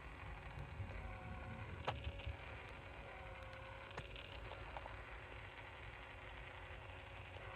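Quiet background with a low rumble and a few soft clicks.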